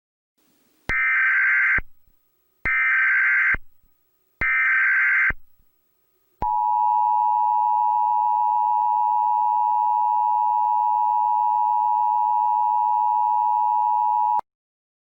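Emergency Alert System tones: three short bursts of warbling SAME data header, each about a second long, then the steady two-tone EAS attention signal held for about eight seconds before it cuts off.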